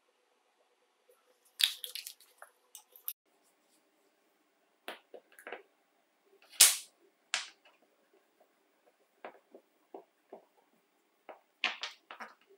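Scattered small metal clicks and taps as screws are set with tweezers into a grinder's aluminium bearing cover and driven in with a screwdriver, one sharp click about halfway through the loudest.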